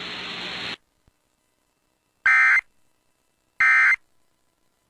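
Emergency Alert System end-of-message code: two short, identical bursts of warbling digital data tones, each about a third of a second long and about a second apart. Before them, a steady hiss from the broadcast feed cuts off just under a second in.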